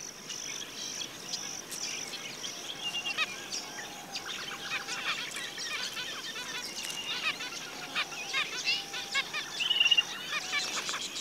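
Zebra finches calling: many short chirps and twitters, quick and irregular, over a steady high-pitched background hiss that is strongest in the first few seconds.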